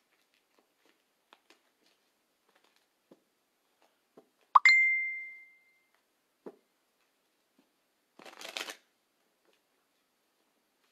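Tarot cards being handled and shuffled: faint taps, then a short riffle of cards about eight seconds in. About four and a half seconds in, a single bright ding rings out and fades over about a second.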